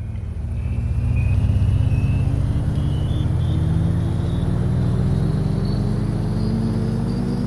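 A motor vehicle's engine, swelling up over the first second or so and then running loud, its pitch rising slowly and evenly throughout.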